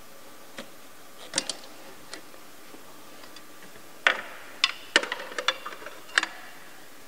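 Factory metal coolant pipes clinking and knocking against the engine bay as they are worked up and out by hand. A few light clicks come first, then a cluster of louder clanks with brief metallic ringing from about four to six seconds in.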